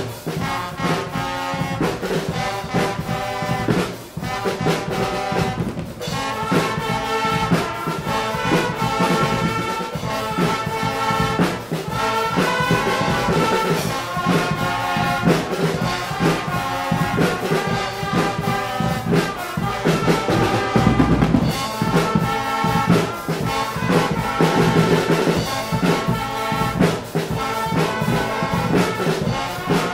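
Guggenmusik carnival band playing live: trumpets, trombones and saxophones in loud unison over a steady beat of marching snare drums and large bass drums, with a heavier bass-drum surge about two-thirds of the way through.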